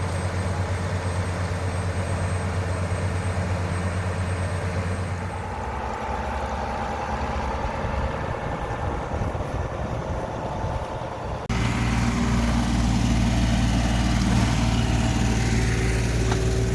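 Heavy engine of a geothermal well-drilling rig running steadily. About eleven seconds in, the sound cuts abruptly to a louder, deeper engine drone.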